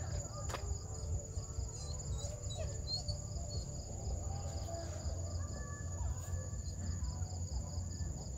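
Insects calling at dusk: one steady high-pitched trill and a second pulsing one just below it, over a low rumble. A couple of footsteps crunch on the gravel road near the start.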